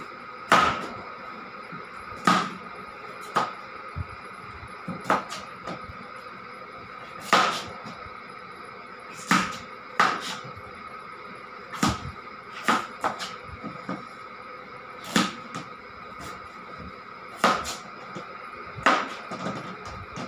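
A small knife cutting through a raw carrot in short, sharp cuts, about fifteen of them at uneven intervals a second or two apart, as the carrot is trimmed into square plank-like sticks.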